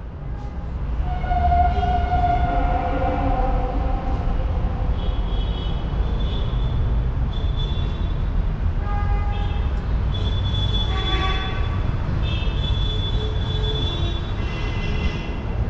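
Tram rolling on street rails with a steady low rumble and high-pitched wheel squeal, several squealing tones that come and go and shift in pitch.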